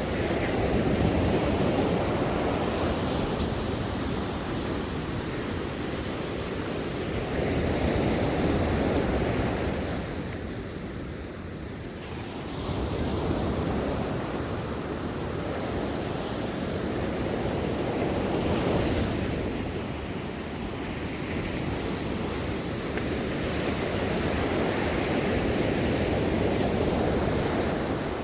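Ocean waves breaking on a shore: a continuous rush of surf that swells and eases as each wave comes in, with a quieter lull about ten seconds in.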